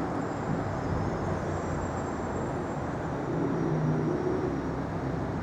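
Steady city street traffic noise: a continuous low rumble of vehicles, with a faint engine hum that swells slightly a few seconds in.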